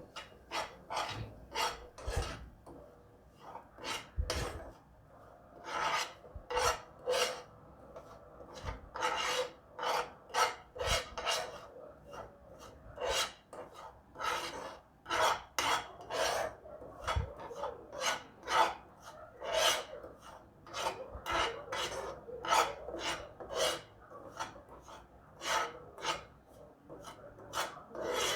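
A spoon or spatula scraping and stirring semolina roasting in ghee in a pan, in repeated short rasping strokes about one or two a second.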